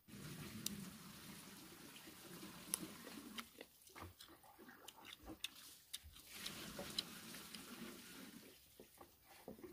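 A person bites into and chews a crisp slice of sour star fruit, making a run of sharp crunchy clicks, over a faint low hum.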